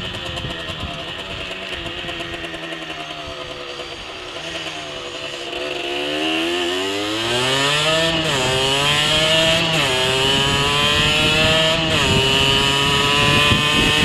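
Rieju SMX 50cc two-stroke moped engine with its standard exhaust, heard from the rider's helmet: running at a steady low pitch, then accelerating hard, its pitch climbing and dropping sharply at three upshifts in the second half, getting louder as it goes.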